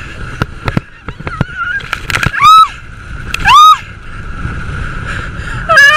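Water rushing and splashing around a tube being towed across a lake, with scattered sharp splashes. About two and a half seconds in and again a second later come two loud, short, high-pitched cries that rise and fall in pitch.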